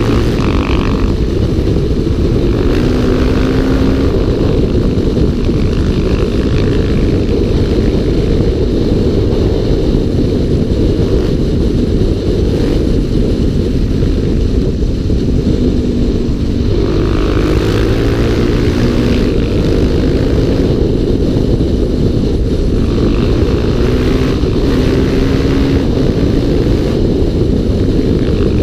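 Single-cylinder four-stroke dirt-bike engine (a Suzuki DR-Z400SM or Yamaha WR450 ridden as a supermoto) revving up and down through the bends, under heavy wind rush on the microphone.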